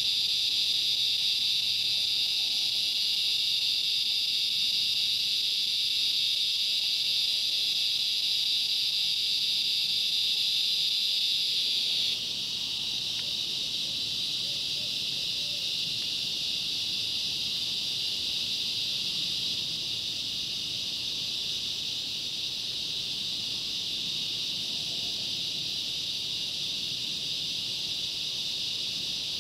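Steady chorus of insects such as crickets, a dense shrill high buzz. About twelve seconds in it drops a little in level and shifts slightly.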